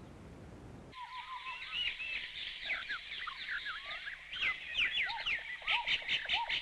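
A chorus of tropical birds chirping and calling: many short whistled notes, rising and falling, that start about a second in and grow busier toward the end.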